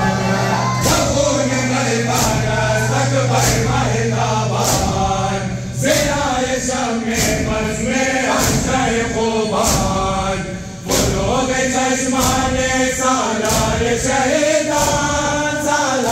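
A group of men chanting a Shia noha into microphones, with the crowd beating their chests (matam) in a steady, even rhythm under the singing. A low steady hum sits under it for about the first six seconds.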